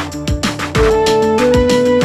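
Background electronic music with a steady beat: kick drums whose pitch drops, crisp hi-hats and sustained synth notes.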